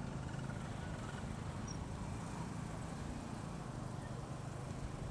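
Boda boda motorcycle taxi's engine running steadily while under way, with road and wind noise over a low hum.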